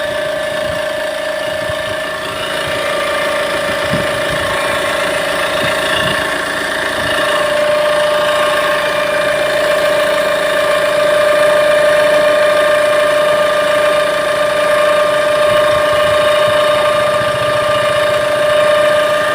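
Tata Safari Storme's VariCOR diesel engine idling with a steady high-pitched whine over the running. The mechanic suspects the whine comes from the turbocharger, whose turbine may have developed play inside.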